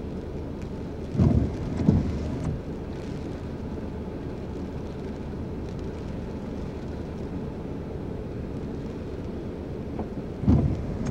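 Steady low rumble of a car's cabin in stopped traffic, broken by dull low thumps about a second in, near two seconds and again near the end.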